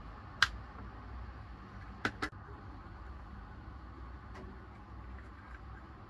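Plastic clicks from a small hinged plastic tape dispenser being opened and handled: one sharp loud click about half a second in, then two quick clicks about two seconds in and a faint one later, over a low steady hum.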